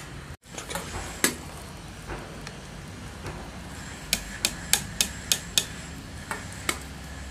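Steel ladle clinking against a metal pot and a steel plate as boiled dough balls are lifted out of the water: one sharp clink about a second in, then a quick run of clinks near the end.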